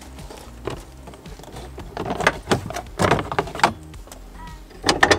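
A plastic access cover being pulled off a minivan's rear interior side trim panel: a run of clicks and knocks as its clips pop loose and the plastic is handled.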